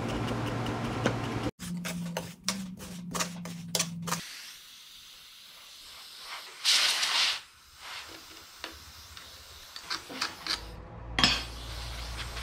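Short bursts of compressed air from a blow gun, hissing as it clears loose sand around the pattern in the rammed casting sand: one longer burst about six seconds in and a briefer one near the end. Before that comes a run of sharp knocks and taps.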